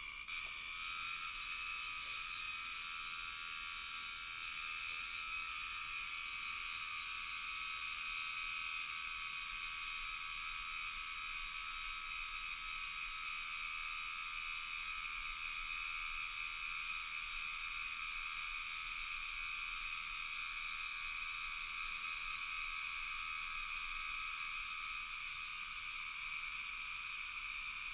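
A dense evening chorus of calling animals, high-pitched and unbroken, holding one steady level throughout.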